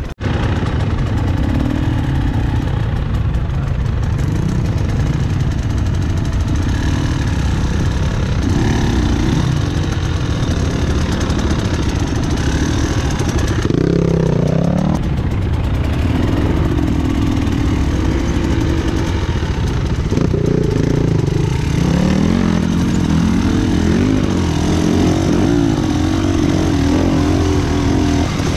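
Enduro motorcycle engine running as the bike is ridden, its revs rising and falling with the throttle, with one clear rise in revs about halfway through.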